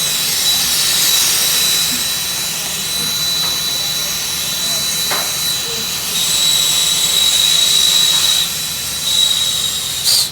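Gas soldering torch flame hissing steadily with a thin high whistle, shut off suddenly near the end.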